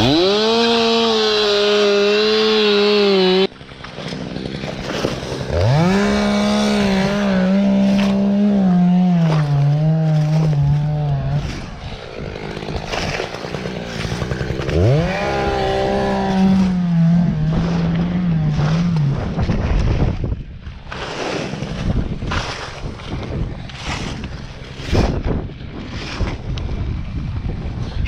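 Stihl two-stroke chainsaw revving to full throttle in three long bursts, its pitch sagging near the end of the second and third as the chain bites into the palm wood. It is followed by a run of irregular crunching and scraping knocks from dry palm debris over the last several seconds.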